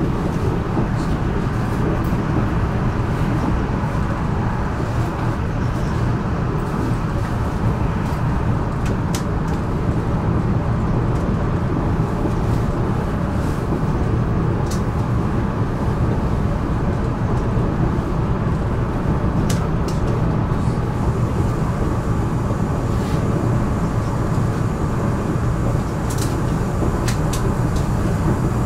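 Régiolis bimode multiple unit (B 84500 series) running along the line on diesel power, a steady engine and wheel-on-rail rumble heard on board, with a few short high clicks scattered through it.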